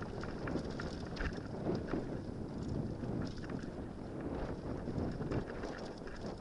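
Mountain bike riding fast down a rough dirt singletrack: steady wind noise on the microphone and tyre rumble, with frequent quick clatters and knocks as the bike runs over bumps.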